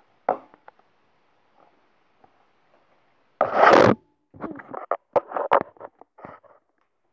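Handling noise from the recording device as it is moved: a small knock, then about three and a half seconds in a loud rubbing scrape as it is tilted, followed by a couple of seconds of knocks and rustles.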